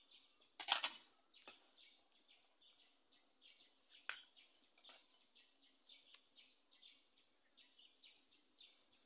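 A metal serving spoon clinks against a metal cooking pot and enamel bowls as fish stew is dished out: a quick cluster of clinks about a second in, a sharp one about four seconds in, then a few fainter taps. Behind it is a steady high chirping of outdoor insects and birds.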